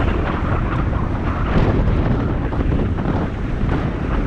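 Wind buffeting the microphone of a bicycle riding at speed: a steady, loud rush with low rumble.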